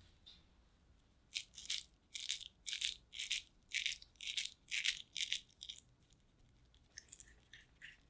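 Shredded potato being squeezed and rolled between the palms into a ball: a run of soft, crackly rustles, about two a second, with a few fainter ones near the end.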